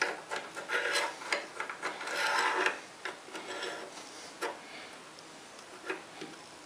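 Steel parts of a homemade lathe's saddle being handled and fitted: scraping with small clicks and a faint metallic ring for the first couple of seconds, then a few sharp single clicks.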